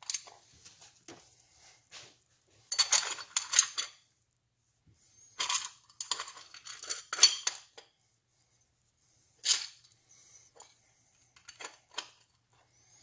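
Small metal parts and tools clinking and rattling in several short bursts of clatter, with single light ticks between them, as engine parts are handled on a workbench.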